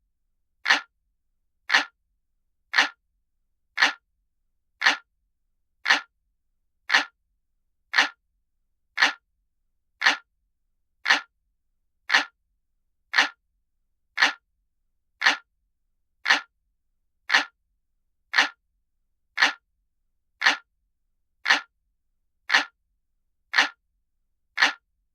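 Clock ticking sound effect, as from a traditional analog clock, looped as a steady tick about once a second with silence between ticks.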